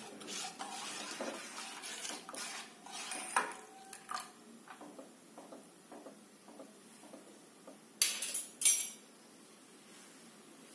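A spoon stirring liquid in a metal cooking pot, scraping and clinking against the sides, with two sharp, louder clinks about eight seconds in.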